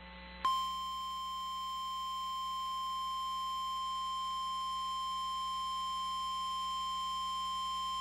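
Emergency Alert System alert tone: a single steady high tone that starts about half a second in and holds unbroken. It signals that a warning broadcast, here a flash flood warning, is about to follow.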